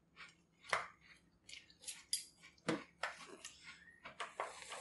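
Metal spoons clinking and scraping against a large glass bowl as cereal is scooped out, in irregular short clicks.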